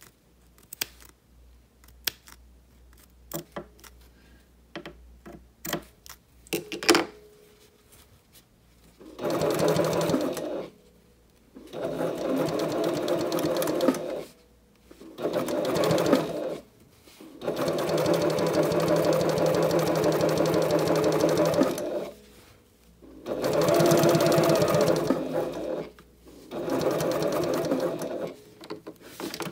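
Domestic sewing machine basting piping onto fabric, running in six separate stretches of two to four seconds each with short stops between, as the work is guided around a curve. Before the first stretch, about nine seconds of scattered light clicks and handling.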